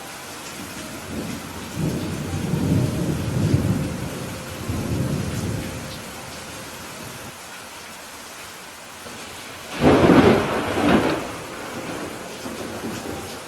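Steady rain falling, with thunder rumbling low for a few seconds after about a second and a half. A louder, sharper thunderclap comes about ten seconds in.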